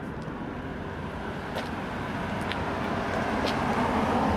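Steady vehicle rumble that grows gradually louder, with a few faint light clicks.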